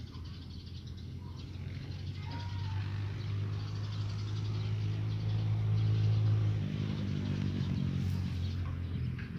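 A motor vehicle's engine running nearby with a low steady hum that grows louder for about six seconds, then shifts higher in pitch as it passes.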